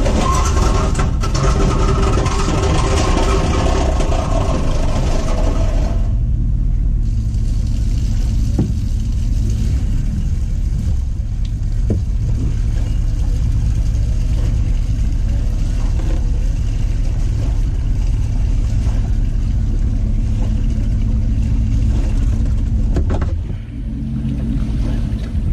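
A boat engine being cranked and failing to start, a loud, crazy sound with several steady high tones that stops suddenly after about six seconds. A steady low engine rumble from the idling truck runs underneath, heard from inside the cab.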